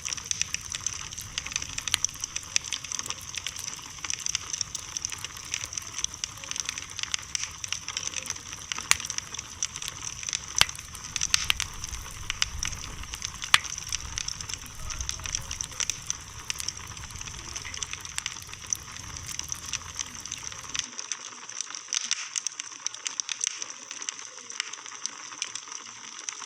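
Wood bonfire crackling: a dense run of irregular sharp pops over a steady hiss. A low rumble underneath drops out about three-quarters of the way through.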